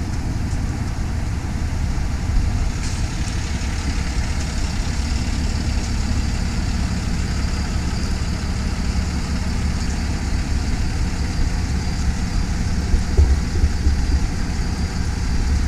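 A vehicle engine idling, a steady low rumble with no change in speed.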